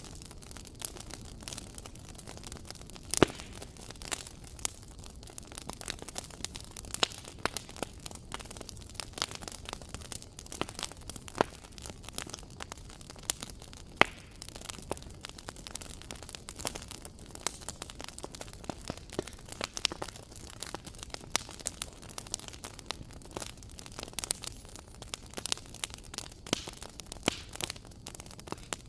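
Fireplace fire crackling: a dense, irregular run of small pops and snaps over a low steady hiss. A few sharper pops stand out, the loudest about three seconds in and another about fourteen seconds in.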